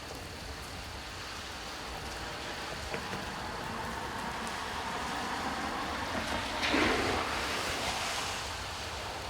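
Steady rain falling, a broad hiss that slowly builds and swells into a louder rush about seven seconds in before easing off.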